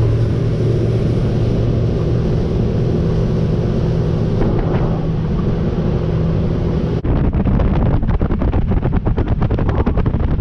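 A small fishing boat's outboard motor running steadily under way, a low even hum with wind rushing past. About seven seconds in it cuts to a rapid, irregular buffeting of wind on the microphone over the engine.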